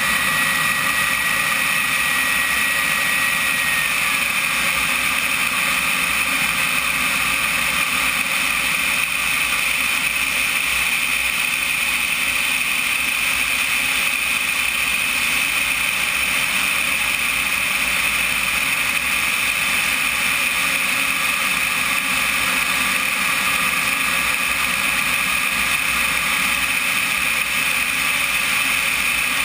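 Onboard sound of a radio-control sport jet's small turbine engine in flight: a steady high whine over rushing airflow noise. About four seconds in, the whine drops slightly in pitch as the turbine slows, then holds steady.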